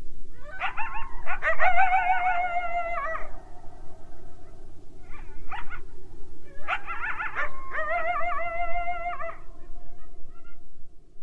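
Howls of a wild canine: two long wavering howls of about three seconds each, each starting with a rising glide, and a short call between them, over a steady low hiss.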